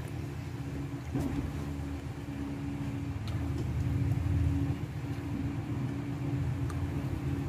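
A steady low motor rumble with a faint constant hum, with a few faint clicks.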